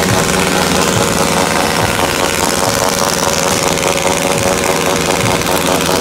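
A loud, steady din: an engine-like drone under a dense hiss, with no break or let-up.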